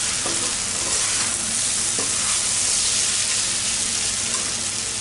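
Potato and dill-leaf bhaji frying in oil in a kadai over a high gas flame, with a steady sizzle. A spatula stirring through it adds a few light scrapes.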